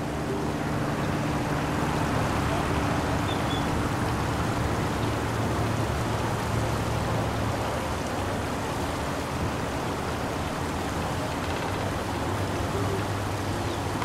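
Steady roar of distant freeway traffic, an even wash of noise with a faint low hum underneath.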